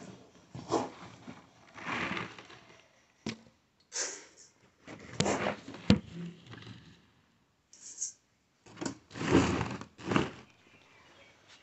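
Irregular rustling and scraping with a few sharp knocks, from a phone camera rubbing against a cotton jacket as it is handled.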